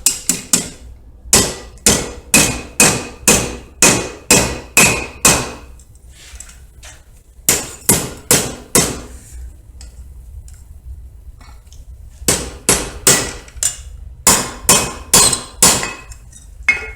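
Hand hammer striking a small bar of hot mild steel on the anvil, opening up the split for a forged cross: about two ringing blows a second, in three runs with short pauses between.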